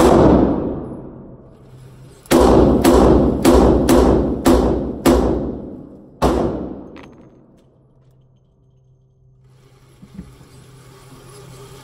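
Ruger GP100 stainless double-action revolver firing six rounds of .38 Special +P in quick succession, about half a second apart, each shot echoing in an indoor range. Single shots also ring out at the very start and about six seconds in.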